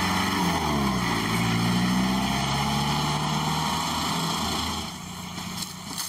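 Pickup truck engine running on a dirt road. Its pitch dips and rises again about a second in, then holds steady before fading away about five seconds in.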